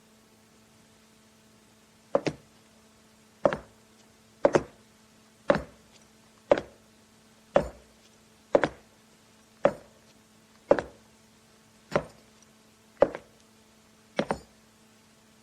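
A slow series of evenly paced knocks on a hard surface, about one a second and several of them doubled, over a faint steady hum and hiss.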